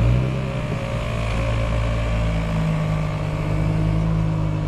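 Jeep engine running at a steady idle just after starting, with a slight change in its note about two seconds in.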